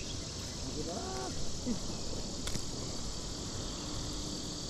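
Steady chorus of insects, an even high-pitched hiss, with a faint voice about a second in and a single sharp click about halfway through.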